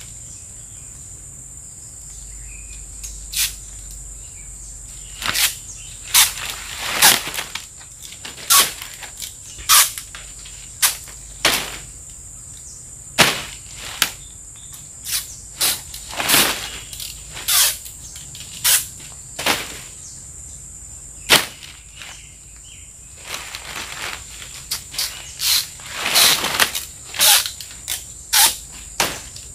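A sago palm frond stalk being cut and split by hand: sharp, brief, irregular strokes, some in quick runs, over a steady high-pitched insect drone.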